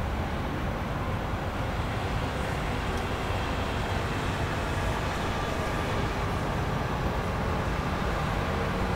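Small groundskeeping vehicle's engine running steadily, a low even hum with no change in pace.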